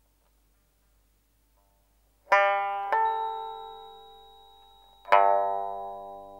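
Sparse film-score music: a plucked string instrument sounds three notes, two close together about two seconds in and one more about five seconds in, each ringing on and slowly fading.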